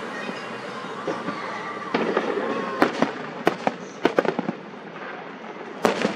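Fireworks going off: a quick series of sharp bangs and crackles starting about three seconds in, and another loud bang near the end.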